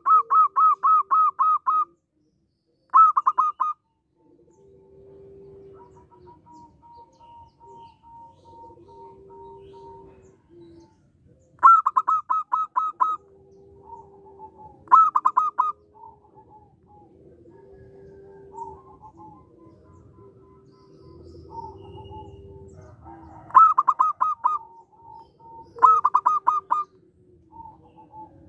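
Zebra doves (perkutut) calling: six loud bursts of rapid, staccato notes, with softer, lower, drawn-out coos in between.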